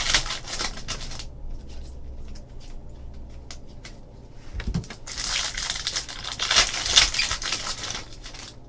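Crinkling and rustling of trading card packs and cards being handled, in two bursts: a short one at the start and a longer one from about five seconds in, with quieter handling noise between.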